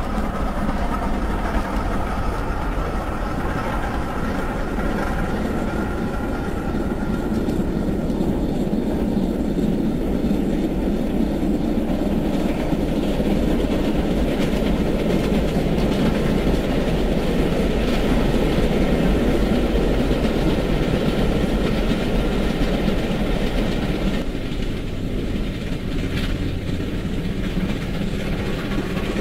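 Steam locomotive hauling a train of coaches, a steady running rumble of the engine and train on the rails.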